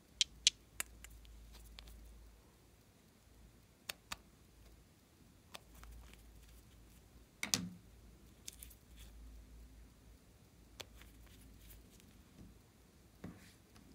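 Small hard-plastic clicks and taps as pear-shaped toy bottles are handled and their caps pulled off: three quick clicks at the start, then a few scattered ones, the loudest about halfway with a dull knock under it.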